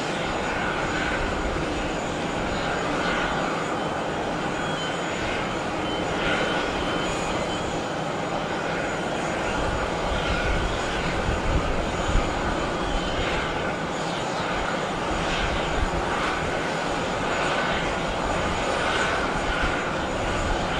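Jet airliner engines running on the apron: a steady rush of engine noise with a thin, faint high whine over it.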